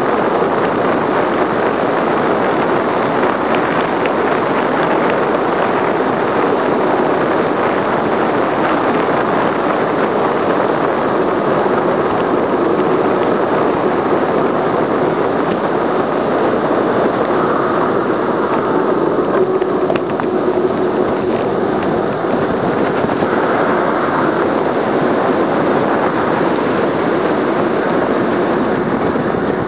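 Wind rushing over and buffeting the microphone of a camera mounted on a bicycle descending a road at around 50 km/h, a steady loud noise throughout.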